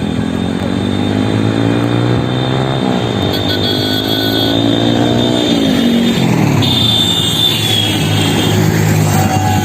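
TVS Apache RTR 160's single-cylinder engine running through an aftermarket SC Project silencer, revved up twice and let fall back. The engine then settles to a steady idle for the last couple of seconds.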